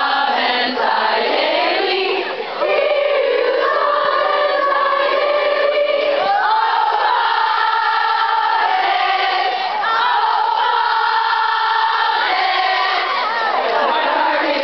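A large crowd of young women singing together in unison, holding long sustained notes. There is a short break about two and a half seconds in.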